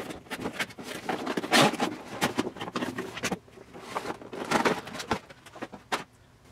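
Cardboard window box and clear plastic packaging of a 10-inch Funko Pop vinyl figure being handled as the figure is slid out: irregular crinkling, rustling and scraping, dying down near the end.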